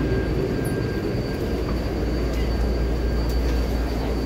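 Cabin noise inside a Taipei Metro C381-type train car: a steady low rumble with a faint, steady high whine above it.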